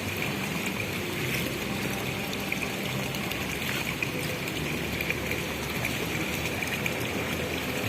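Steady rushing and trickling of running water.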